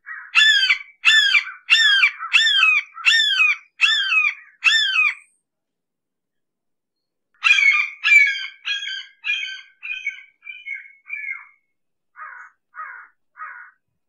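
Red-shouldered hawk calling: a run of about eight harsh, downward-slurring calls less than a second apart, then after a pause of about two seconds a second run that grows fainter and shorter, ending in three faint calls near the end.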